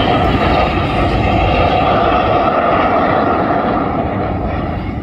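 Red Arrows BAE Hawk T1 jets passing in a display, a loud steady jet roar that begins to fade near the end.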